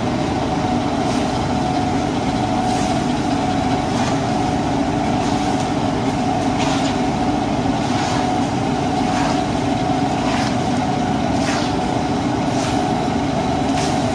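Metal skimmer scraping and turning soaked rice in a large steel pan, about one stroke a second, as the rice is toasted in melted butter and oil for pilaf. A loud steady machine hum runs underneath.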